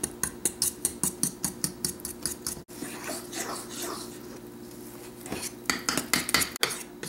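Metal spoon stirring pancake batter in a small stainless steel bowl, clinking quickly against the sides at about five taps a second. The clinking eases to a softer scrape in the middle, then quickens again near the end.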